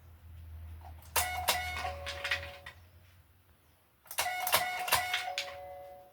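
Dog-operated treat-dispenser button pressed twice. Each press sets off about a second and a half of mechanical clicking and rattling, with a held tone that steps down to a lower one.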